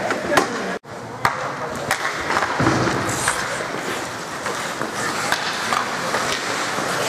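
Ice hockey play: skate blades scraping on the ice and scattered sharp clacks of sticks against the puck and ice, over background voices echoing in the rink. The sound drops out briefly just under a second in.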